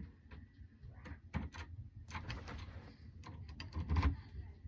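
Irregular small clicks, scrapes and knocks of a large screw being set into a door handle and turned in by hand.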